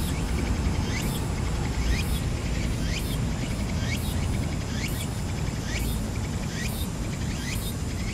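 An insect calling in an even rhythm, a short pulsed buzz rising and falling in pitch a little more than once a second, over a constant low rumble.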